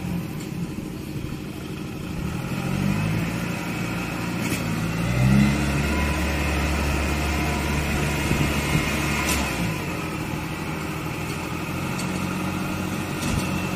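Engine of a tracked rice-hauling machine running under load, revving up a couple of times in the first half, as it labours to get through deep mud.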